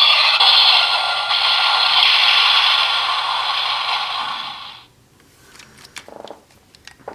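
Electronic firing sound effect of a DX Attache Shotgun toy playing through its small speaker: a long, noisy blast that fades out about five seconds in. It is followed by a few faint clicks.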